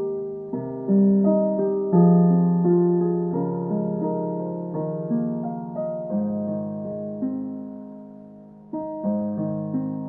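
Background piano music: a slow melody of struck notes, each fading away, with a brief lull just before the last couple of seconds.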